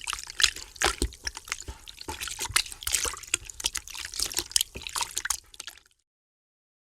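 Water splashing and dripping in an irregular patter, cutting off abruptly about six seconds in.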